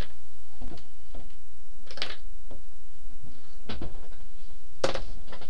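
A few scattered sharp clicks and light knocks, about five in all, over a steady low hum.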